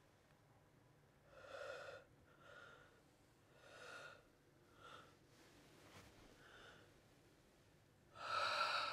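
A woman breathing heavily and unevenly through her open mouth, a run of about six audible breaths at irregular gaps, the last one near the end the loudest.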